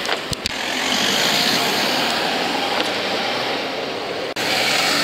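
Car engine running as a car drives off, with two sharp clicks about half a second in and a momentary dropout just after four seconds.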